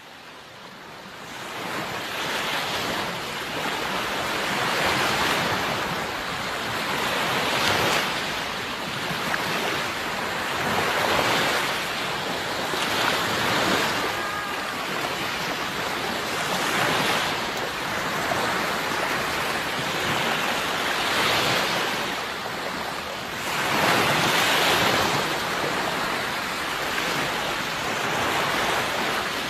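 Sea waves breaking and washing ashore, swelling and ebbing every few seconds. The sound fades in over the first couple of seconds.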